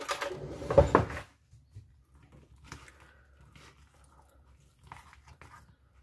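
A short burst of kitchen handling noise with a knock in the first second, then faint scraping and stirring as macaroni salad is mixed with Miracle Whip in a plastic bowl.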